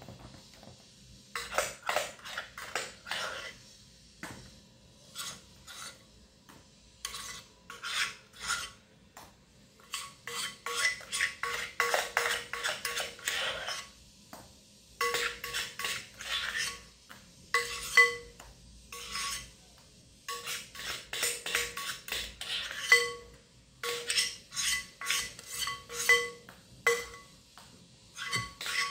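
A spoon scraping a thick, creamy ice cream mixture out of a mixing bowl into a plastic tub, with scraping strokes throughout. From about the middle on come repeated clinks of the spoon against the bowl, each ringing briefly at the same pitch.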